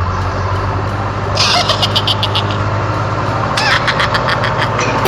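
A motor vehicle engine running with a steady low hum, with a rapid rattling burst about a second and a half in and a shorter one near four seconds.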